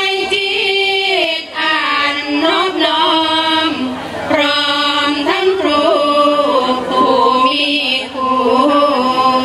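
Sarabhanya, the Isan Buddhist devotional chant, sung by women's voices through microphones: a slow melody of long held, gently wavering notes, in phrases broken by brief pauses about one and a half, four and eight seconds in.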